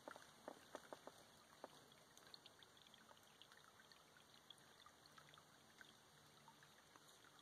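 Faint trickle of a shallow stream running over rocks, with small scattered plinks of water. A few soft crackles in the first second or so.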